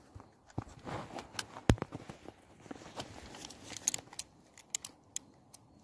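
A string of sharp metallic clicks and small rattles from a Gasser Montenegrin revolver being handled at its cylinder, the loudest click about two seconds in, with rustling of dry pine needles and leaves.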